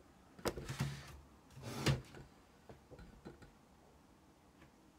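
Handling noise as the camera is moved and set down: a few knocks and short rustles in the first two seconds, the loudest near two seconds in, then only faint light ticks.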